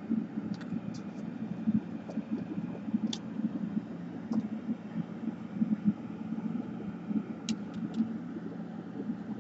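Steady low background rumble, with a few light clicks of small hand tools and wire ends handled on a workbench, scattered through.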